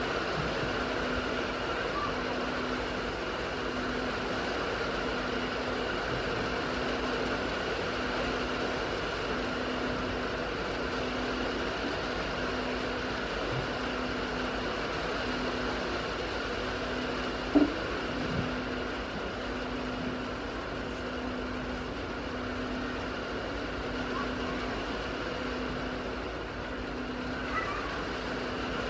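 Steady rain on a barn roof, with a low hum that pulses about once a second under it. One sharp knock comes a little past halfway.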